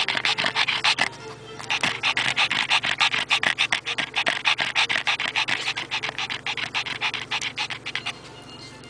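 Pekingese dog panting fast and close up: quick, raspy breaths about six a second, with a short pause about a second in and easing off near the end.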